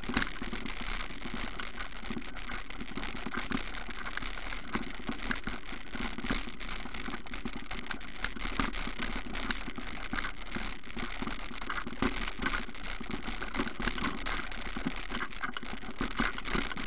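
Steady rustling noise dense with small knocks and clicks: the rattle and jostle of a low-mounted camera travelling over a bumpy grassy field track.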